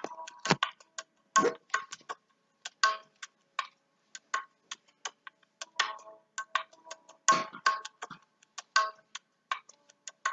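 A person moving barefoot on a wooden floor and a thin mat: irregular clicks and taps, with heavier thumps about half a second in, around a second and a half in, and about seven seconds in.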